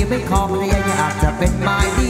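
Ramwong band music with a steady drum and bass beat under melody lines.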